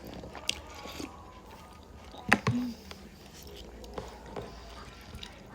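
Close-miked chewing and wet mouth sounds from eating gelatinous cow's foot, with a few sharp clicks, the loudest about two seconds in.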